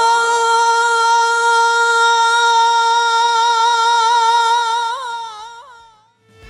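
A muezzin's voice in the ezan, the Islamic call to prayer, holding one long note, then breaking into a few quick ornamental turns about five seconds in before fading out. It is the evening call that marks the breaking of the Ramadan fast.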